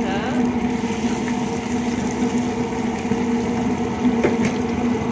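Catfish fillets deep-frying in a Cajun fryer: hot oil sizzling and bubbling steadily over a constant hum. There is a short metallic clack about four seconds in as a fry basket is lifted from the oil.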